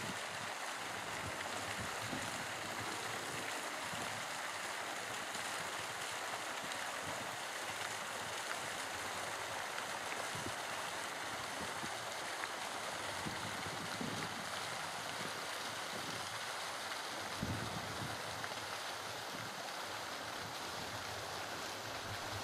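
Garden fountain's water jets falling into a stone basin, with steady splashing.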